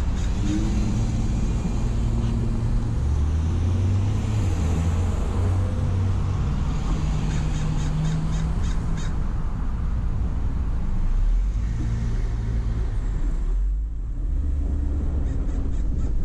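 Car driving: a steady low engine and road rumble that shifts in pitch as the speed changes, dipping briefly near the end.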